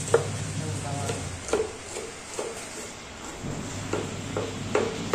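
Kitchen knife chopping garlic cloves on a wooden cutting board: separate knocks of the blade on the board, about one a second.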